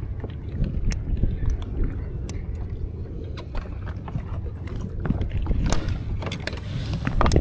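Steady low rumble of wind and water around a kayak on the sea, with scattered light clicks and knocks.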